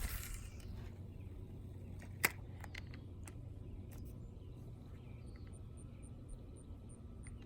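Faint outdoor background with a steady low rumble. A sharp click comes a couple of seconds in, followed by a few lighter clicks.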